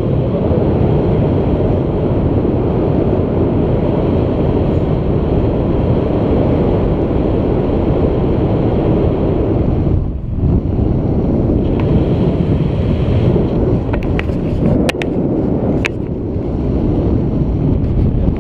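Airflow buffeting an action camera's microphone in flight on a tandem paraglider: a steady, loud, low rumble of wind noise. It dips briefly about halfway through, and a few sharp clicks come about two-thirds of the way in.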